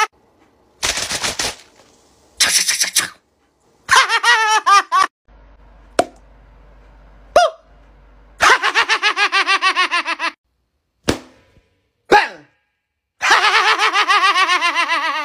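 Several bouts of fast, high-pitched staccato laughter, each a rapid run of short pulses. Two short noisy bursts fall in the first three seconds and a few sharp clicks come between the bouts.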